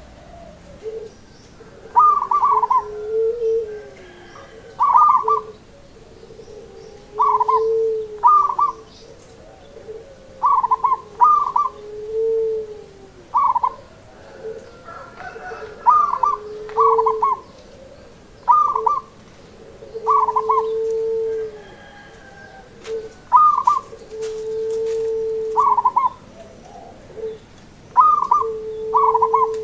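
Zebra dove of the local Javanese strain (perkutut lokal) singing its rhythmic cooing song. Each phrase is a couple of quick, clipped higher notes followed by a long, lower held coo, repeated about every two to three seconds.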